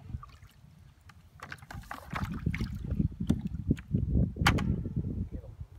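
Water sloshing and gurgling as a plastic bucket holding fish is dipped and tipped in the lake shallows to let lake water flow in over them. Irregular splashes build from about a second and a half in, loudest near the end.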